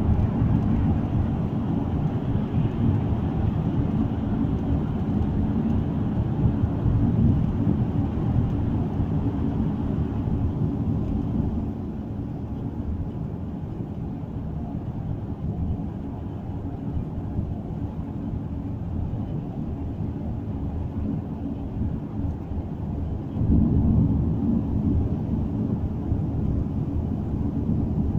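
Car cabin road noise at dual-carriageway speed: a steady low rumble of tyres and engine. It is loud inside the road tunnel and drops noticeably about eleven seconds in as the car leaves it, then grows louder again about twenty-three seconds in.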